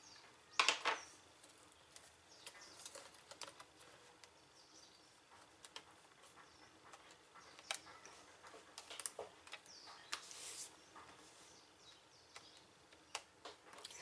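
Hands handling the plastic chassis and cables of an opened laptop: scattered light clicks, taps and rustles, with one louder clatter about a second in.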